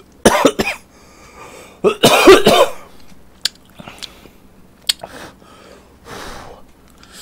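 A man slurping ramen noodles close to the microphone: loud slurps, the biggest about two seconds in, then sharp mouth clicks and softer slurps while he chews.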